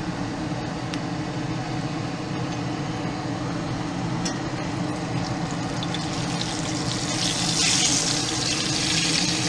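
A taco frying in oil in a cast-iron skillet, sizzling steadily, the sizzle growing louder about six seconds in as it is lifted and turned with a spatula. A couple of light spatula clicks against the pan, over a steady low hum.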